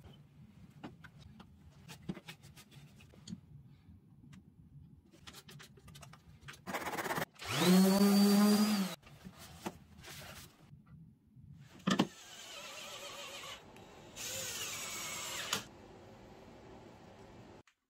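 Random orbital sander spinning up and running with a steady hum for about a second and a half, sanding a wooden joint flush; light knocks from handling the wood come before it. Later a sharp click, then another small power-tool motor runs steadily, louder for a second or so near the end.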